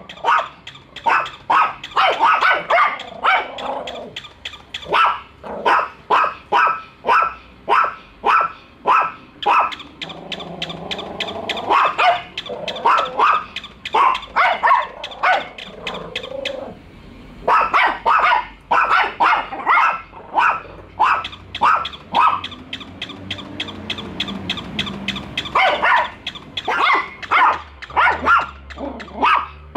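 Small dogs, a Yorkshire Terrier and a Chihuahua, barking rapidly and repeatedly at a plush toy dog, a run of sharp yappy barks with a couple of short pauses.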